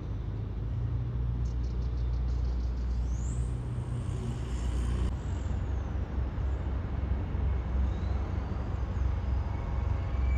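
Steady low engine rumble, with a higher whine that rises about three seconds in and fades away after about five seconds.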